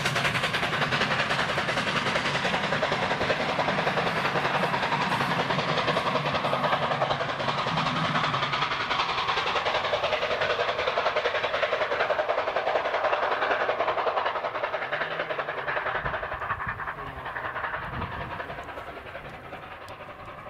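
A train running on the rails: a fast, even clatter that holds steady, then fades over the last few seconds.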